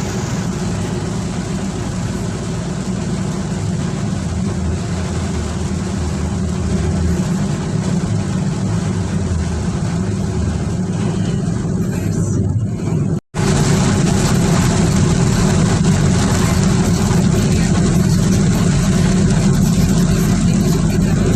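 Heavy rain falling, a steady rushing noise that drops out for an instant about thirteen seconds in and comes back a little louder.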